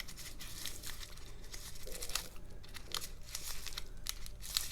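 Plastic packaging crinkling and crackling in irregular little bursts as hands handle it and work at a twist tie.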